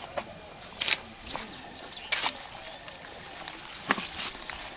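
Steady high-pitched insect drone with several short rustling noises, the loudest about a second in and a little after two seconds.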